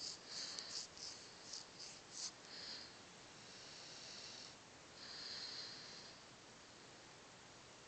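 Cocker spaniel mix dog snoring in its sleep: a quick run of short snorts in the first couple of seconds, then slow airy breaths about a second long.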